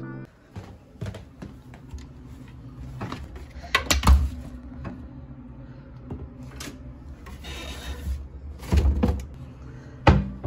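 A wooden cabinet door under a bathroom sink opening, and bottles knocked and shuffled as the cabinet is rummaged. There are heavy thumps about four seconds in and again near nine seconds.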